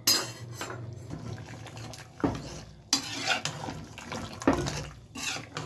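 A metal spoon stirs the thick, freshly pressure-cooked tripe and gravy in an open aluminium pressure cooker. Wet scraping is broken by about five sharp clinks of spoon against pot.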